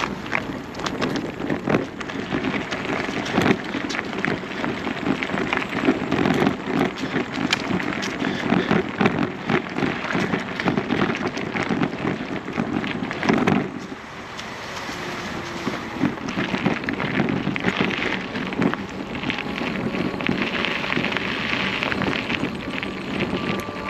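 Loose gravel crunching continuously with movement along a gravel track, a dense crackle with a brief lull about fourteen seconds in.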